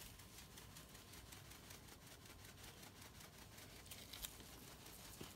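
Near silence: faint room tone, with a single soft click about four seconds in.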